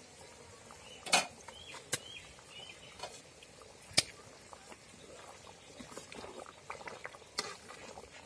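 Steel spatula stirring a large aluminium pot of simmering lemon-juice mixture for lemon rice, with scraping and bubbling. A few sharp knocks of metal on the pot stand out, the loudest about four seconds in.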